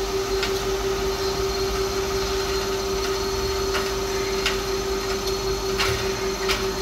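Thyristor-driven DC motor running steadily at about 1000 rpm: a constant hum with a steady high tone through it, and a few light clicks. Tacho-generator feedback holds the speed while the mechanical load is eased off.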